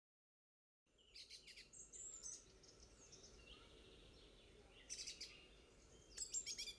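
Faint birds chirping: several clusters of short, high chirps, starting about a second in, over a faint outdoor background.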